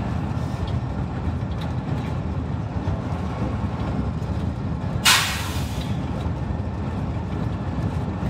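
Small V22 diesel shunting locomotive running along the track with a steady low engine rumble. About five seconds in, a sudden short hiss of compressed air cuts in and fades within a second.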